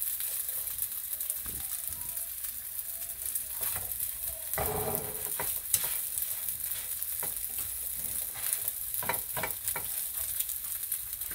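Battered squid strips sizzling in hot oil in a nonstick frying pan, a steady high hiss. Scattered sharp clicks and scrapes come from metal tongs turning the pieces against the pan, with a longer, louder stretch of scraping about halfway through.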